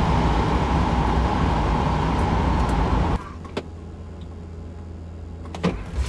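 Cabin noise of a Rimac Nevera, a four-motor electric hypercar, running at high speed: loud wind and tyre rush with a steady electric motor whine. About three seconds in it cuts off suddenly to a low, steady hum with a couple of clicks as the car sits stationary.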